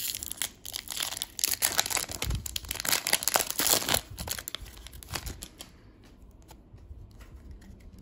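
Foil wrapper of a 2022 Panini Prizm baseball retail pack being torn open and crinkled by hand, dense and crackly for about the first four seconds, then dying down to faint rustles and small clicks.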